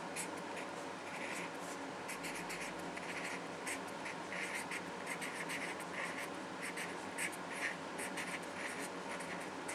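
Someone writing by hand: many short, irregular pen strokes in quick succession.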